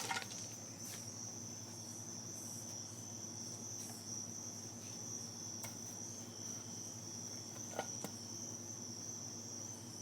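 Steady high-pitched insect drone of cicadas, holding one pitch throughout, with a faint knock about eight seconds in.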